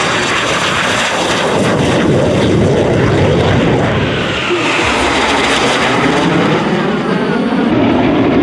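BAE Hawk jets' turbofan engines, a loud steady roar as the formation flies low overhead; from about a third of the way in, a whine falls in pitch as the jets pass by.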